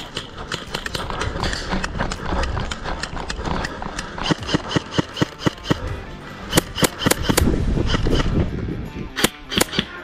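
Running footsteps on grass with loose gear rattling, about three to four strides a second, with a few sharper knocks near the middle and near the end. Background music plays underneath.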